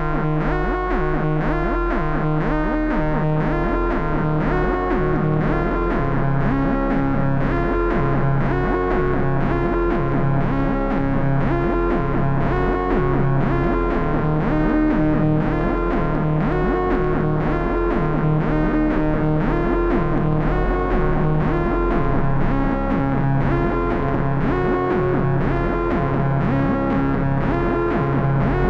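Dreadbox Erebus v3 analog synthesizers playing a steady, repeating sequenced bass line with a gritty, distorted lead line changing over it.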